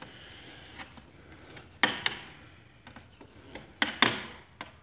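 Flat-blade screwdriver prying weatherstripping out of a door jamb: light scraping, then sharp clicks and snaps, loudest in two close pairs about two seconds apart, as the stiff strip is worked loose.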